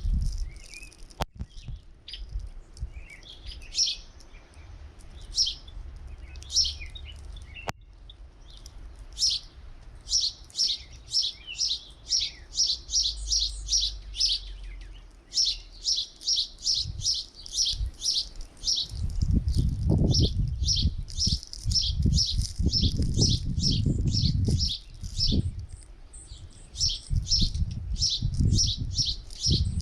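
Small songbirds at a feeder giving repeated short, high chirps, sparse at first and then in quick runs of about four a second. Low rumbling gusts of wind on the microphone come in over the middle and again near the end.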